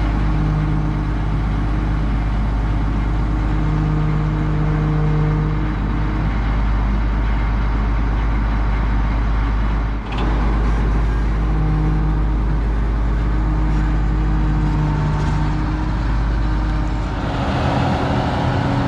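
Truck engine running steadily under way, a deep rumble with a held hum, dipping briefly about ten seconds in.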